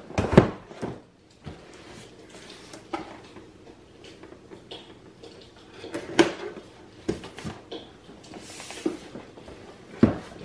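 A lightsaber's retail box and its packing tray being worked open and pulled about by hand: irregular knocks, bumps and scrapes. The loudest knocks come just after the start, about six seconds in and just before the end, with a short rustle a little before that.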